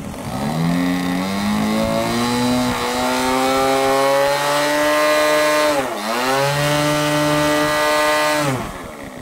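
The RC Extra model plane's engine is run up to high throttle and held there. About six seconds in the rpm dips sharply and recovers, and near the end it is throttled back down. The plane is held nose-up during the run-up, the usual pre-flight check that the engine keeps its mixture and doesn't lean out when pointed vertically.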